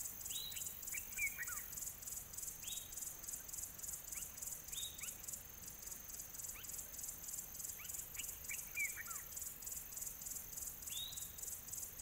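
Outdoor nature ambience: an insect, cricket-like, chirring in a steady rapid high pulse, with a bird giving short downward-sliding whistled calls every few seconds.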